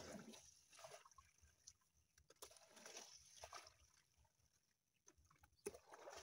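Faint sloshing and splashing of muddy water poured from a plastic bucket into a woven basket, coming in short, irregular spells.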